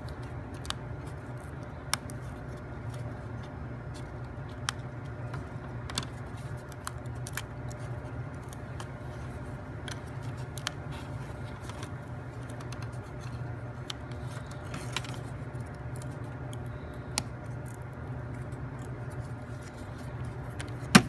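Scattered light clicks and snaps of small laser-cut plywood pieces being pressed out of their sheet and handled, over a steady low hum, with a sharper click near the end.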